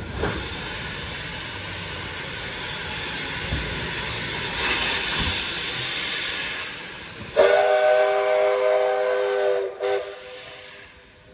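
A 1953 steam locomotive venting steam with a loud, even hiss for several seconds. Then its whistle sounds one long blast of several tones at once and a short second toot: the departure signal.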